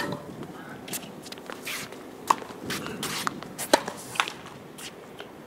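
A tennis ball struck hard by a racket right at the start, then more sharp ball hits and bounces on a hard court over the next few seconds, with shoe scuffs and footsteps between.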